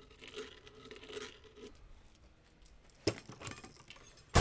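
Blade of a hand deburring tool scraping around the inside of a steel shotgun muzzle, cutting a slight reverse chamfer, with several rasping strokes over the first second and a half. A couple of light clicks follow, then a sharp knock at the very end.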